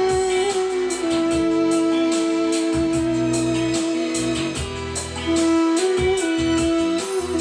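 Armenian duduk in apricot wood, made by Karen Mukaelyan, playing a slow melody in long held notes, stepping to a new note about a second in and several times in the second half. It is played over a recorded accompaniment with a bass line and a regular beat.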